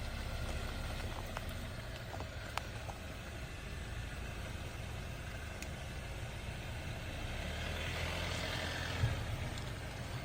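Jeep engine running steadily at low crawling speed over a rocky trail, with a few sharp clicks and knocks from the tyres on rock, a rise of gravelly hiss near the end and one louder thump about nine seconds in.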